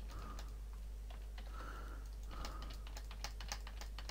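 Irregular clicks of a computer keyboard and mouse, with a quick run of clicks from about two and a half to three and a half seconds in, over a faint steady low hum. A few faint short tones also recur about once a second.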